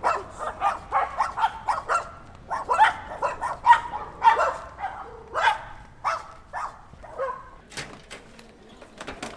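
Dogs barking in a quick, steady run of sharp barks, about three a second, for around six seconds before tailing off. A few sharp clicks follow near the end.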